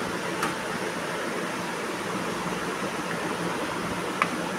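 Steady rushing background noise with no clear source, with a light click about half a second in and a sharper click near the end.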